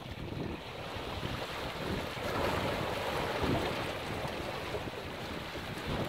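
Small sea waves washing and breaking among the large stones of a rock breakwater, a steady surf hiss that swells about two seconds in and then eases, with wind rumbling on the microphone.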